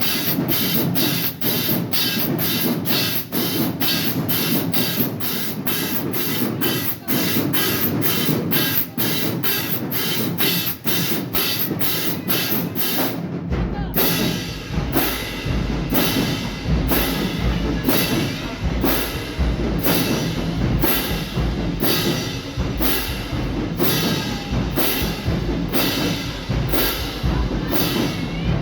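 Marching band playing, with a drumline beating a steady fast pattern; about halfway through, heavy bass drum hits come in and the groove changes.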